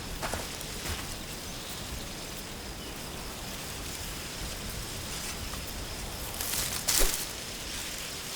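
Countryside ambience: a steady high insect chirr under a soft noise bed, with a louder rustle and click about seven seconds in.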